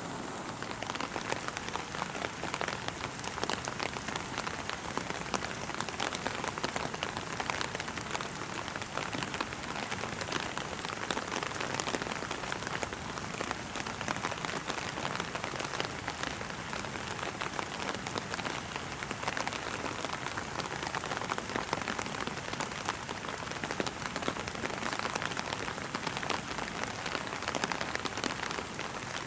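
Steady rain falling, a dense patter of many small drops.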